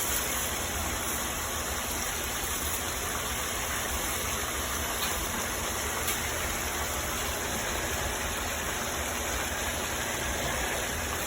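Chicken breast pieces with onions and bell peppers frying in a pan: a steady sizzle over a constant low hum.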